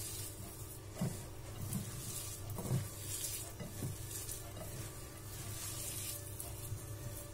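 A hand kneading and squishing shredded cabbage, carrot and onion with flour in a glass bowl: faint, uneven rustling with a few soft knocks, over a steady low hum.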